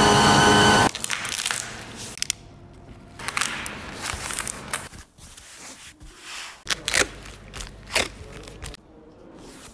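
Laser engraver whining steadily for about the first second, then cutting off abruptly. A run of crackling, crinkling and scraping packing noises follows, sharpest near the end as packing tape is run off its roll and pressed down.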